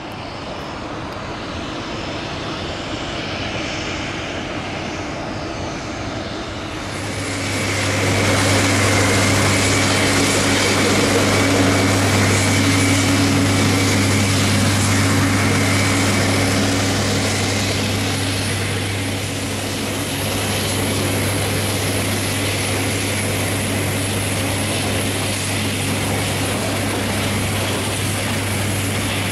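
Steady machinery hum with a high, even whine from power equipment running beside a parked Boeing C-17A Globemaster III whose engines are shut down. The sound comes up about seven seconds in, over a quieter outdoor hiss.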